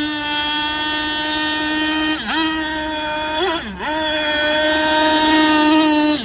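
Zenoah 32cc two-stroke petrol engine of a radio-controlled speedboat running at high revs in a steady high whine. It dips briefly in pitch and comes straight back up about two seconds in, and twice more in quick succession around three and a half seconds in.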